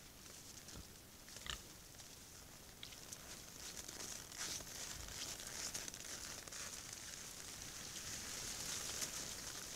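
Wild boars rooting and feeding on frozen ground: faint crunching, rustling and small cracks, over a steady high hiss.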